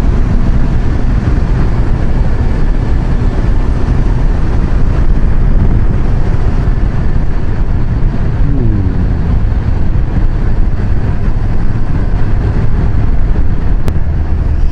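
Wind rush and engine drone of a Kawasaki Versys 1000 motorcycle at road speed, heard through a helmet-mounted microphone as a loud, steady low rumble. A brief falling tone comes through about eight and a half seconds in.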